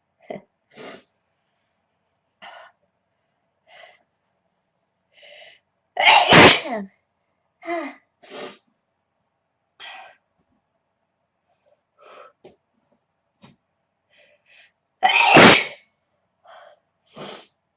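A young woman sneezing twice, loudly, the two sneezes about nine seconds apart, with short, quieter breath sounds in between.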